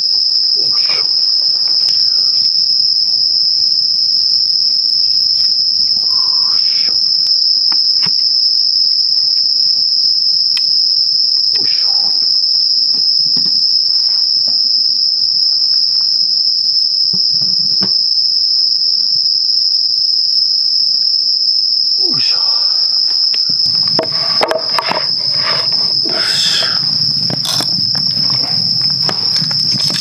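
Night insects chirring in a continuous high trill. Scattered wooden knocks and rustles of sticks being fitted together, busier from about two-thirds of the way in.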